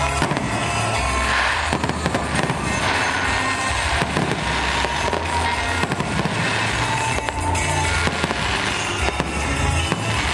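Aerial firework shells bursting in quick succession: a dense run of bangs and crackles, with music playing underneath.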